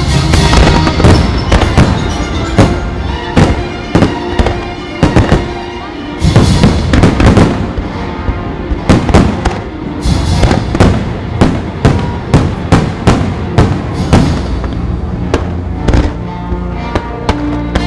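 Fireworks bursting and crackling in quick succession, several bangs a second with a short lull about six seconds in, over the fireworks show's music soundtrack.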